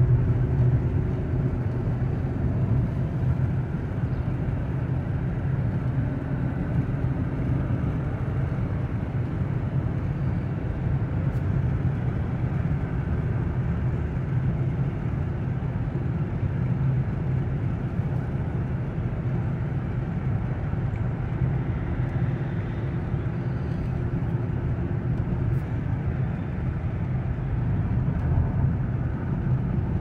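Car driving at steady speed: a continuous low rumble of road and engine noise heard from inside the cabin.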